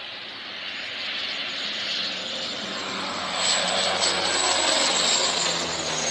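A Canadair amphibious water bomber's engines grow louder as it passes low overhead, with a faint high whine. About three and a half seconds in, its dropped water load comes down in a loud rushing hiss.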